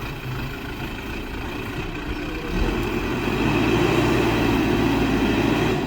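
Heavy diesel engine of construction equipment running, growing louder about halfway through and holding there.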